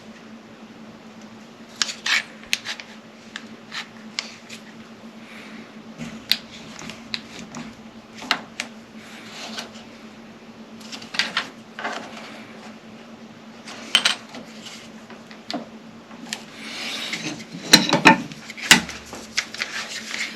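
Woodworking hand tools and clamps being handled against wood on a workbench: irregular clicks, knocks and rubbing, busiest and loudest near the end. A steady low hum runs underneath.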